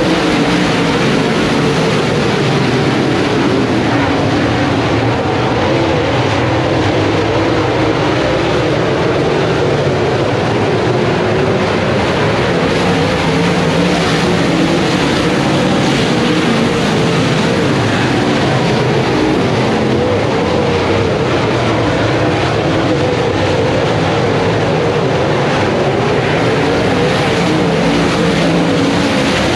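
A field of dirt-track race cars racing around the oval. Their many engines blend into one loud, steady, continuous sound.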